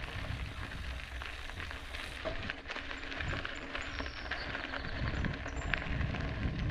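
Mountain bike rolling along a dirt trail: tyres on the ground and the bike rattling and clicking over bumps, with a low rumble of wind on the microphone.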